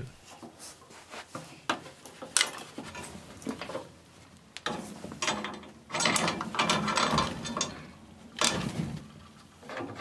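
Gas control valve being screwed into a water heater tank on Teflon-taped threads, grinding and creaking in irregular bursts as it is turned in stages, with small clicks and knocks from the handling.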